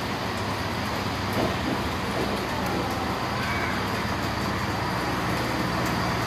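Siemens Desiro diesel multiple unit moving past along the platform, its diesel engine running steadily under the noise of the train rolling on the rails.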